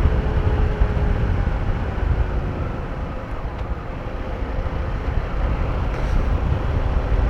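Motorcycle riding at speed: steady engine and road noise under a heavy, even wind rumble on the microphone, with a faint steady whine that fades out about a second in.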